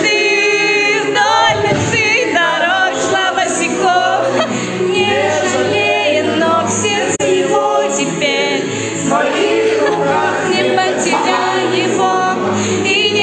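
Background music: a song with singing voices over an accompaniment with held low notes.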